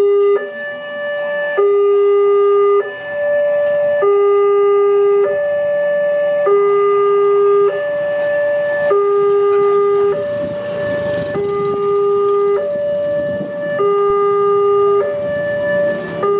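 Electronic two-tone alarm of a railway level-crossing gate, alternating steadily between a low and a higher tone, each held about a second: the warning that a train is coming and the barriers are coming down. A rush of noise builds underneath from about ten seconds in.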